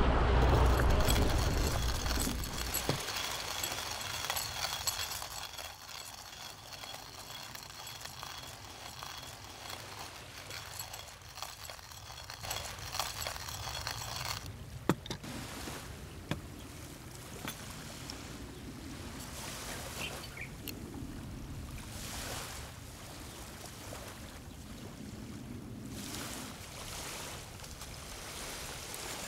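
Wind and sea noise that fades out over the first few seconds, then small coffee-making sounds: a stainless hand coffee grinder being cranked, scattered clicks and knocks of gear on a wooden table, and paper rustling as a filter is fitted into a wire dripper near the end.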